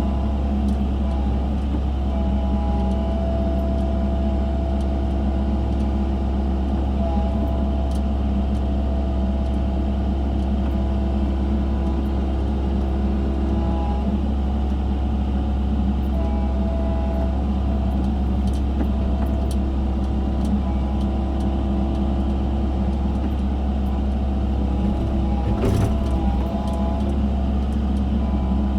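Excavator running steadily while digging: a constant low diesel engine hum, with a whine that comes and goes over it and one knock near the end.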